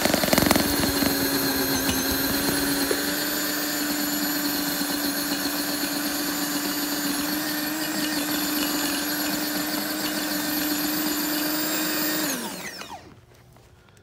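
Earthwise 7.5-inch, 2.5-amp electric tiller running with a steady whine as its tines churn into grassy lawn, with some clattering knocks in the first half second. About twelve seconds in it is switched off and winds down, the pitch falling away.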